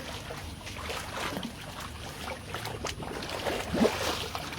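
Water lapping and sloshing with scattered small splashes and knocks.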